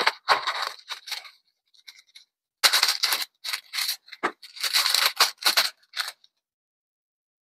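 Packaging being handled and opened by hand: crinkling, rustling and scraping in a run of short irregular bursts, with a pause of about a second near the middle.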